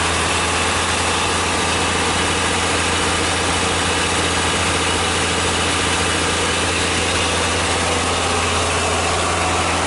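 Isuzu Giga FVR truck's diesel engine idling steadily, close up, with no revving.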